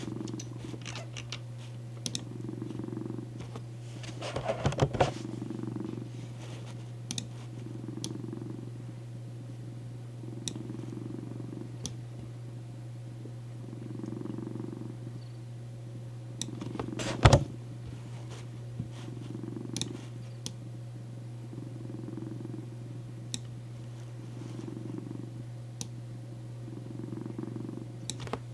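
Domestic cat purring steadily, swelling and easing with each breath about every two seconds, over a steady low background noise. A few brief knocks break in, the loudest about 17 seconds in.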